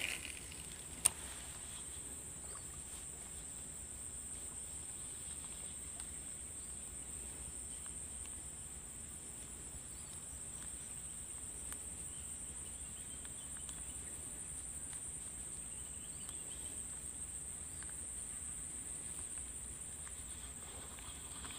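Steady high-pitched chorus of insects droning without a break, with a single sharp click about a second in.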